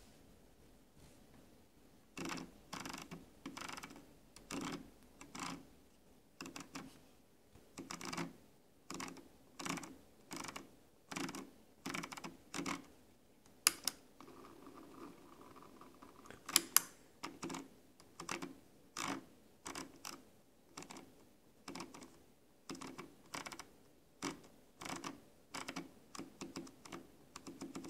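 Logitech G502 mouse scroll wheel being rolled by a finger: short bursts of ratcheted clicking, about one and a half a second, starting about two seconds in. About halfway through come a few sharp, louder clicks, with a faint steady whir between them.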